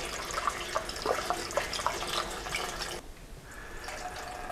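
Water-and-metal-wash mixture pouring from a can through a plastic funnel into a steel fuel tank, splashing and trickling. The flow weakens briefly about three seconds in, then picks up again.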